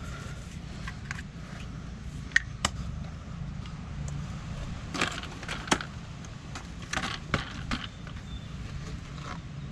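Scattered sharp clicks and knocks, a dozen or so at irregular intervals, over a steady low hum.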